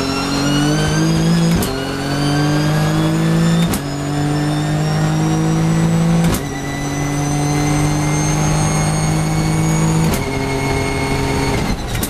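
Nissan GT-R GT3's twin-turbo V6 race engine at full throttle from inside the cockpit, its pitch climbing steadily through the gears with four quick upshifts, each a sharp crack and a drop in pitch. Near the end it comes off the throttle with a couple more sharp cracks as braking begins.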